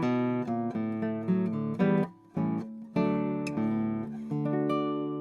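Acoustic guitar music: a run of plucked notes with two short breaks a little after two seconds in, then a last chord that rings out.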